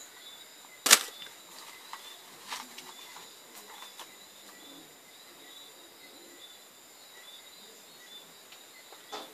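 Plastic tub and its lid being handled: one sharp clack about a second in and a few fainter knocks later. A faint steady high-pitched tone runs underneath.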